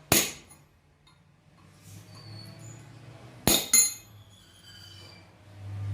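Hammer striking a hand-forged center punch into mild steel: three sharp metallic clinks with a brief ring, one right at the start and a quick pair about three and a half seconds in.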